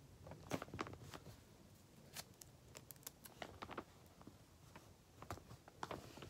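Clear sticky tape and paper being handled and pressed down: irregular soft crinkles, taps and clicks.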